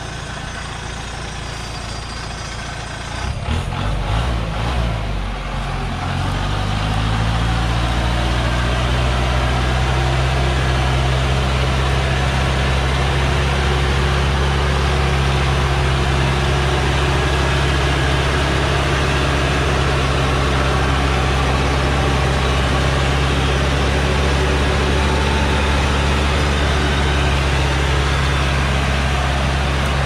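Heavily loaded logging truck's diesel engine working hard. The revs climb over a few seconds starting about three seconds in, then hold a loud, steady high drone as the truck crawls up a muddy slope.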